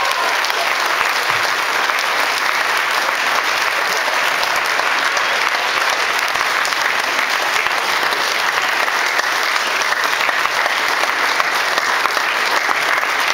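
Many wedding guests applauding together, a dense, steady patter of clapping hands.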